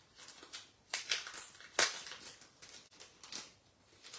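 Plastic crinkling and rustling in a few short, sharp strokes as a sheet of adhesive rhinestone embellishments is handled, the loudest about two seconds in.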